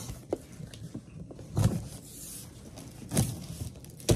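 A cardboard box being worked open by hand: a few separate short scrapes and knocks of cardboard, a second or more apart.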